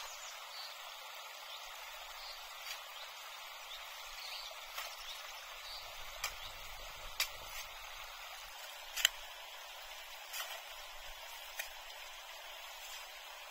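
Steady outdoor background hiss with a handful of sharp, separate clicks or knocks in the second half, the loudest about nine seconds in.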